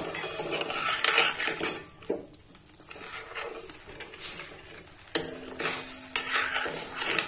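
Metal spoon scraping and clinking against a steel kadhai as sugar and water are stirred. There is a short lull about two seconds in and a sharp clink about five seconds in.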